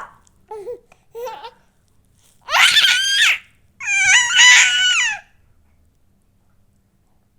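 High-pitched vocal noises. A short sharp cry and two brief lower squeaks come first. Two loud squealing calls follow, each about a second long, their pitch wavering and warbling, and then the noises stop.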